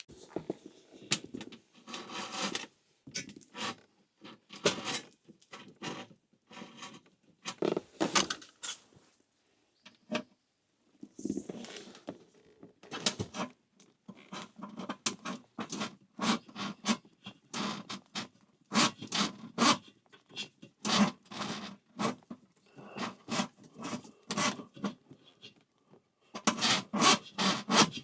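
Electrical cable and pull string being dragged through a tight passage in a van's body, scraping and rubbing in many short, irregular strokes that come closer together near the end. The wire is snagging and not going through easily.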